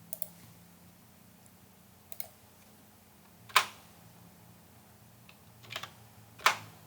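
A few scattered keystrokes on a computer keyboard, with two much louder key presses about three and a half and six and a half seconds in.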